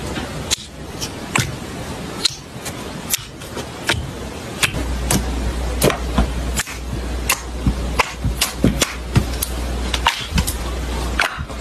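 Slime being poked and squeezed by hand, giving a run of sharp, irregular pops and clicks several times a second; a low hum comes in underneath about halfway through.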